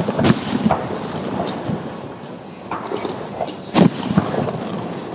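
Aerial firework shells bursting in sharp booms that echo, two in quick succession at the start and the loudest about four seconds in, with smaller pops and crackle between.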